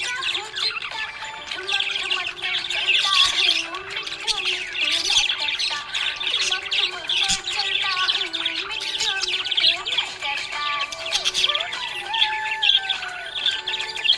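Budgerigars chirping and chattering: a continuous, busy stream of short high chirps and squawks.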